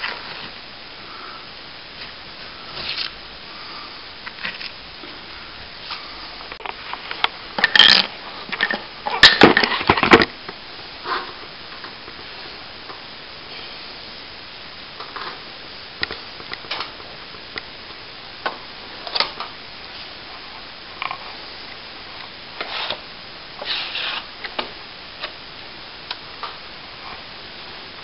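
Scattered scrapes, clicks and knocks of wet cornice cement being pressed up into the laths behind a loose plaster cornice. A louder run of clattering knocks comes about eight to ten seconds in, over a steady hiss.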